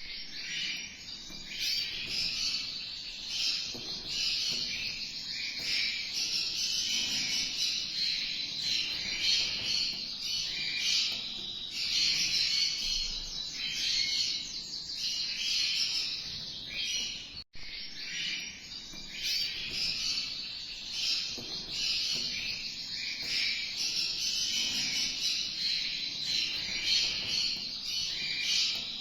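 A dense, continuous chorus of high chirps and trills from small animals, cut off for an instant about seventeen seconds in.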